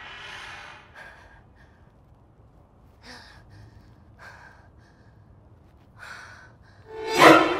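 A woman crying in short, breathy sobs and gasps, a few spaced a second or two apart. A sudden much louder burst comes near the end.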